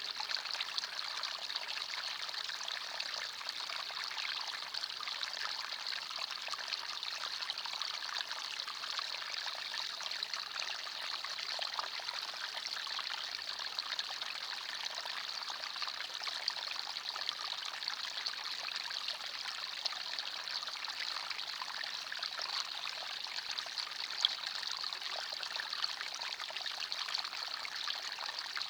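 Forest stream of water running and trickling over stones, a steady even rush.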